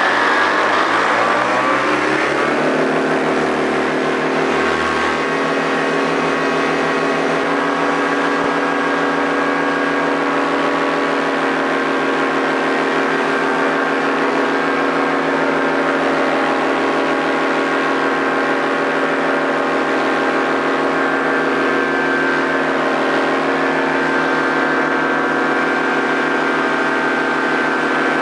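Paramotor engine and propeller revving up over the first two seconds or so, then running steadily at high power, as for a launch.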